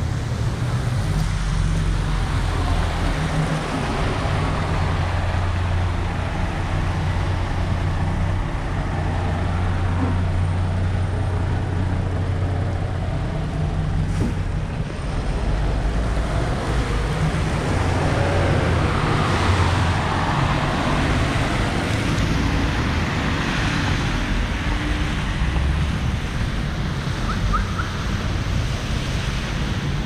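Street traffic: cars passing on a road, with a steady low rumble and a louder swell of tyre noise as a vehicle goes by about two-thirds of the way through.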